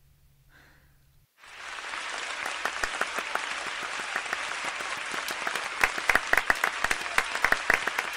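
Audience applauding, starting suddenly just over a second in, with sharper single claps standing out more in the second half.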